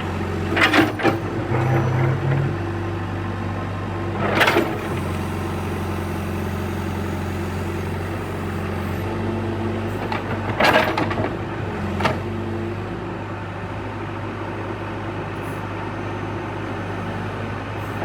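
John Deere 410G backhoe's diesel engine running steadily at low revs, with four sharp clanks or knocks over it, two close together near the start and two more about ten and twelve seconds in.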